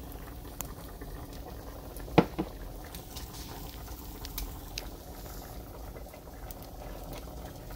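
Food cooking on the stovetop: a steady low bubbling with scattered small pops, and one sharp knock about two seconds in.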